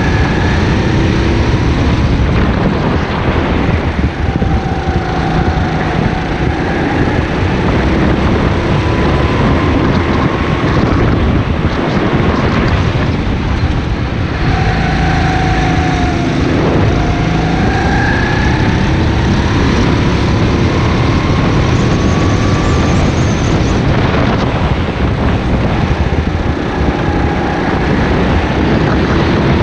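Go-kart engine running hard under the driver, its pitch falling as the kart slows for corners and climbing again as it accelerates, several times over.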